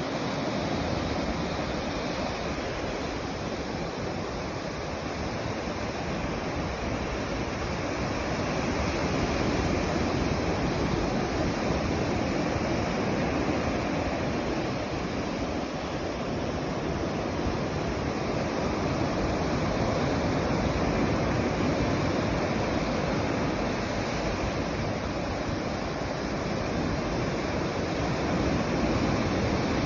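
Ocean surf washing onto a sandy beach: a steady rush of breaking waves that swells and eases slowly, with some wind.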